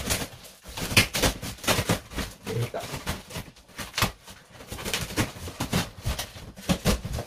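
Small pocket knife slicing through the packing tape and cardboard of a large parcel, with irregular scraping, crackling and tearing sounds as the blade is worked along the lid.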